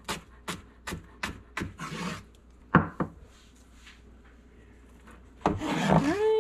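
Chef's knife dicing a shallot on a plastic cutting board: quick even chops, about three a second, then a scrape and one harder knock about three seconds in. Near the end the blade and hand sweep the diced shallot across the board with a scraping rush.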